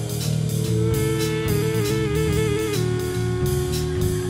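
Electrojazz band playing: a drum kit keeping a steady beat under a moving bass line. A held lead tone wavers in quick steps about a second in, then settles on one long sustained note.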